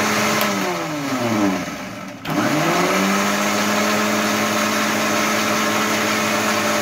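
Electric mixer-grinder motor spinning a small chutney jar of garlic, green chillies and mint. About a second in it winds down to a brief stop, then starts again and spins back up to a steady run.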